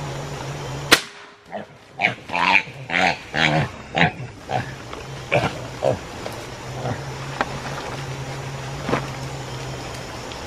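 Young wild boar caught in a snare, giving a quick run of short calls for a couple of seconds, then a few scattered ones. A single sharp crack comes about a second in, before the calls.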